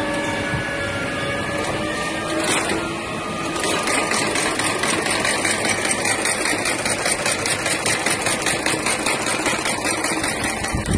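Long-arm cylinder-bed industrial sewing machine running: a steady mechanical hum at first, then from about three and a half seconds in a fast, even clatter of needle strokes as it stitches through felt.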